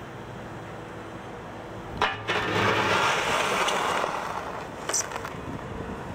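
Wheeled excavator's diesel engine running steadily. About two seconds in, its steel bucket knocks down on the gravel and then scrapes loudly along the ground into a sand pile for a couple of seconds, with another short clank about five seconds in.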